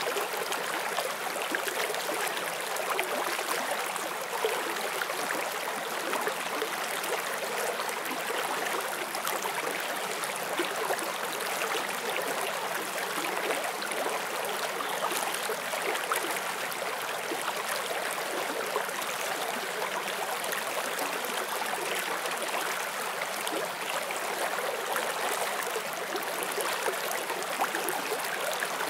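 Forest stream flowing over rocks, a steady rush of water with small splashes and trickles.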